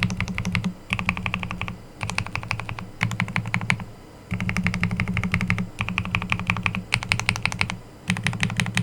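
Fast typing on a Hello Again M0110 custom mechanical keyboard with Akko Silver POM linear switches: runs of quick keystrokes, each under a second long, broken by short pauses, about eight runs in all.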